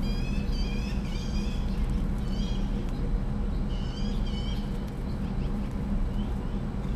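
Peregrine falcon chick calling: short, harsh, repeated cries in quick clusters, over a steady low hum.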